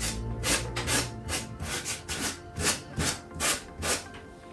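Sanding block with fine 120-grit sandpaper rasping in quick downward strokes over the edge of a pine box, wearing through the overhanging decoupage paper to trim it off; about two or three strokes a second.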